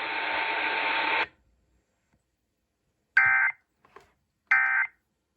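A steady radio hiss cuts off about a second in. Then come two short bursts of digital data tones, just over a second apart: the SAME end-of-message bursts that close an Emergency Alert System warning.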